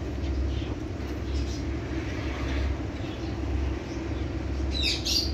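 Steady low droning hum, with a brief high-pitched chirp near the end.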